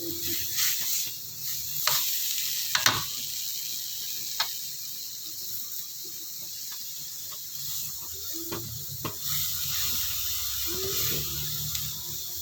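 Water spinach stir-frying in a pan: a steady sizzle, with occasional sharp clicks from stirring.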